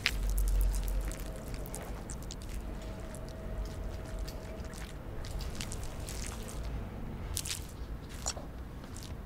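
Wet squishing and sticky clicking of hands being rubbed together, slick with liquid, over a faint steady hum. A sharp click comes right at the start.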